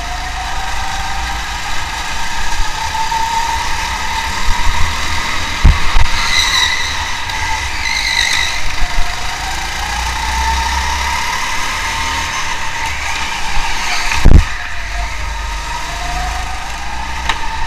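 Car engines running and revving, their pitch rising and settling several times, with two sharp knocks, one about six seconds in and a louder one about fourteen seconds in.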